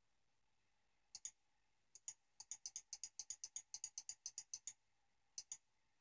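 Computer mouse button clicked repeatedly, stepping a satellite animation frame by frame: a couple of single clicks, then a quick run of about four clicks a second for two seconds, and a last pair near the end.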